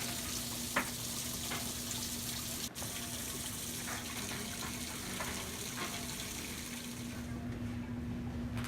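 Hot water rushing into the drum of a top-loading washing machine as it fills, a steady hiss with a low hum underneath. The rushing cuts off about seven seconds in, leaving the hum.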